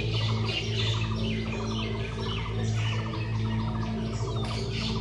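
Forest birdsong: many small birds chirping and trilling together over a steady low drone.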